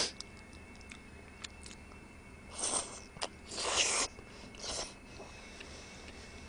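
Knife-cut kalguksu noodles slurped from chopsticks: three short slurps about two and a half seconds in, the middle one the longest and loudest, after a sharp click of utensils against a bowl at the start.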